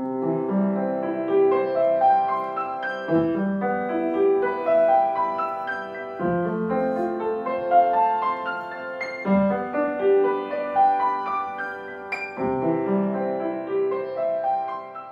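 Solo piano music: a gentle melody of held notes over a low note struck about every three seconds, fading out near the end.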